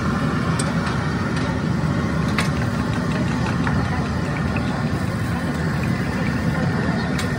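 Steady low engine rumble, with a few light clicks over it.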